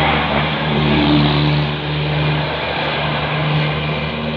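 Diesel engine of a tour bus passing close by: a steady low drone with road noise, easing off a little near the end.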